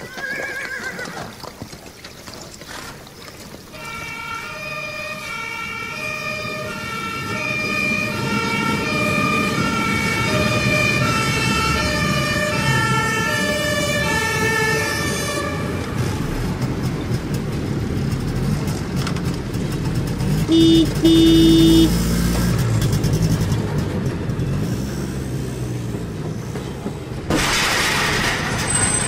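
Fire engine passing with its two-tone siren alternating high and low and growing louder, then the truck's engine rumble with two short horn blasts. A loud burst of hiss comes near the end.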